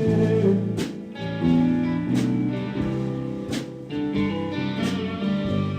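Instrumental passage of a slow song: guitar played in chords, with a sharp accent about every second and a half.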